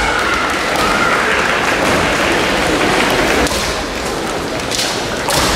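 Kendo bout in a large, echoing sports hall: a fencer's drawn-out shout (kiai) trails off in the first second over a steady hall din, and two sharp knocks come near the end.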